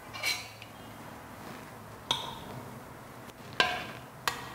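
Metal ladle clinking against a stainless-steel pressure cooker pot as cooked chickpeas are scooped from their water and tipped into a ceramic bowl. It comes as a few separate clinks, the sharpest about three and a half seconds in.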